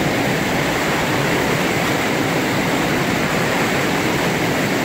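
Whitewater rushing steadily through a rocky river rapid, an even, unbroken wash of noise.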